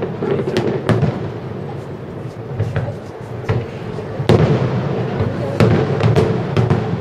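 Aerial fireworks shells bursting: a string of sharp bangs, coming faster and denser from about four seconds in.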